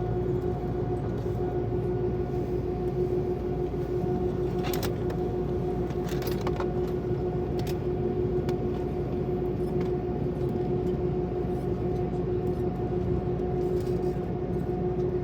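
Steady drone of an airliner, with a constant hum tone over low rumble, and a few light clicks and rattles about five and six seconds in.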